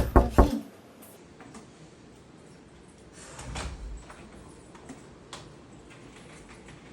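Rapid knocking on a door, the last two knocks in the first half second, followed by a soft scuffing noise about three and a half seconds in and a few faint clicks.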